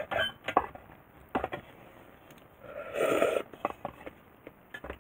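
Eating ramen from an aluminium hangō mess tin: chopsticks click against the tin several times, and a noisy slurp of noodles comes about three seconds in.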